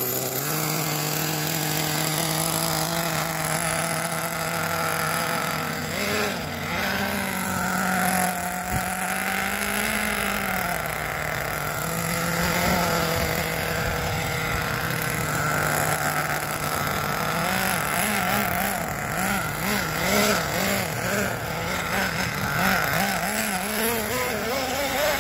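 Redcat Earthquake 3.5 RC truck's small 3.5 cc nitro engine idling while it warms up on a cold start. The pitch wavers in places and, in the last third, rises and falls over and over with small throttle blips.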